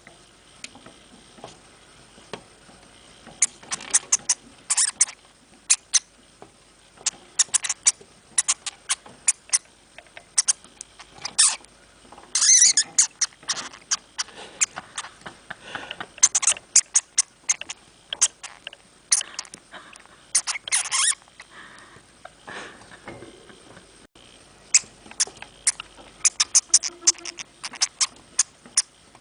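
Hamster making short, sharp high squeaks and clicks in irregular clusters, with denser, louder bursts about 12, 16 and 21 seconds in.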